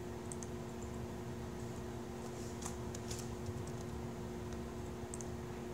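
Laptop keyboard typing: scattered, irregular keystrokes, a few clicks at a time, over a steady low electrical hum.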